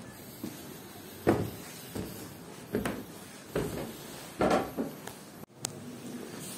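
Footsteps and knocks on hollow wooden steps and a wooden door: five thuds roughly a second apart. The sound breaks off for an instant a little after five seconds, at a cut.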